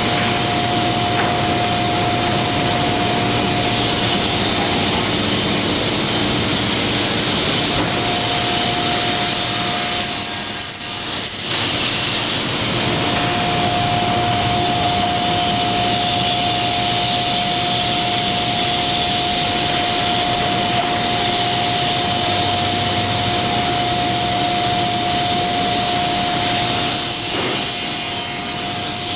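Lobo CNC panel saw running: a loud, steady machine noise with a constant whine, and extra high-pitched tones that come in twice, about ten seconds in and again near the end.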